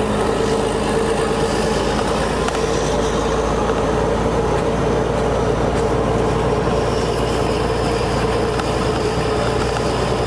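Straight-piped Caterpillar C15 diesel truck engine, with no muffler, running steadily at a constant pitch. Its exhaust makes a loud, even drone with a strong mid-pitched hum.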